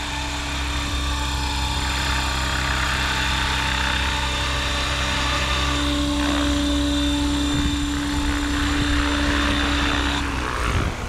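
Oxy5 electric RC helicopter, 6S-powered with an XNova 4025 1120kv brushless motor and SAB 570 mm blades, hovering in to land: a steady rotor buzz with a high motor whine. The whine cuts off near the end as the helicopter settles on the pad and the blades start to spool down.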